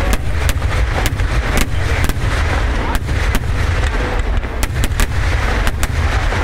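Festival fireworks display: a dozen or so sharp, loud bangs at uneven intervals over a continuous low rumble.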